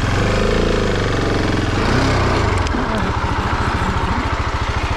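Husqvarna 701 single-cylinder enduro engine, revved up under load for about two seconds as the bike is manoeuvred on a steep grassy slope, then dropping back to a low, steady chug.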